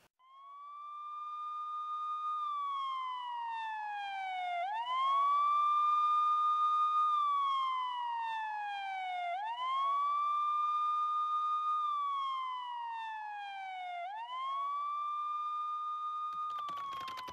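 Siren wailing: a single clear tone that sweeps quickly up, holds, then slides slowly down, repeating about every four and a half seconds. Rapid clicking starts near the end.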